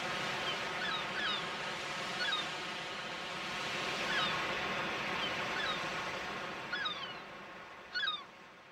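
Seagulls crying in short falling calls, often in pairs, over a steady wash of surf, the whole fading away near the end.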